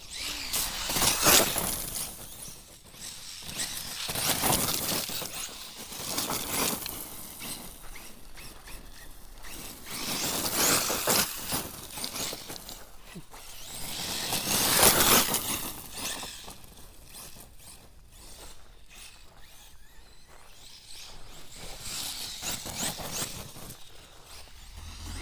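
Tekno MT410 electric RC monster truck driving over gravel, its tires and drivetrain rushing in about half a dozen surges a few seconds apart as it speeds up and backs off, with quieter stretches in between.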